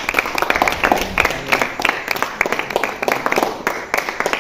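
A group of people clapping their hands, many quick, irregular claps overlapping.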